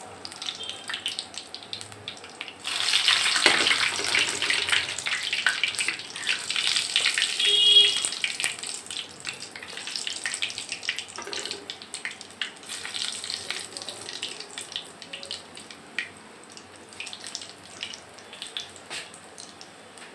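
Gulab jamun dough balls deep-frying in hot ghee in a karahi: steady bubbling and crackling sizzle. About three seconds in the sizzle turns much louder for several seconds as more balls go into the oil, then settles back to a quieter, even crackle.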